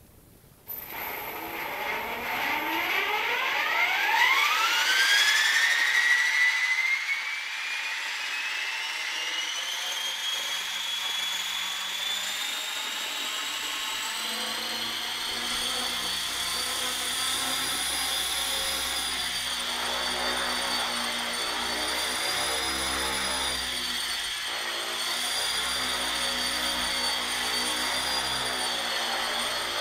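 Align T-Rex 450 Pro electric RC helicopter spooling up: the brushless motor and gear whine climbs steeply in pitch for several seconds, then holds as a steady high whine. From about halfway through, a low rotor beat joins in and the pitch wavers slightly as it lifts off and hovers.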